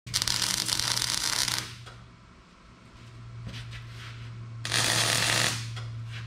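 MIG welding arc crackling on steel box tubing in two bursts, the first about a second and a half long and the second, about five seconds in, under a second, over a steady low hum.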